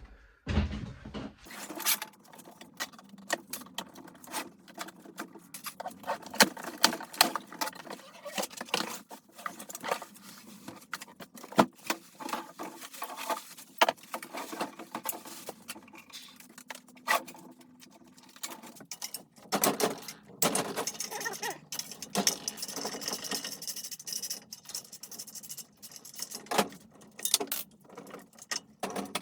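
Irregular clinks, clacks and knocks of metal parts and tools being handled while a small engine is prepared for fitting, with a stretch of rustling hiss about twenty seconds in.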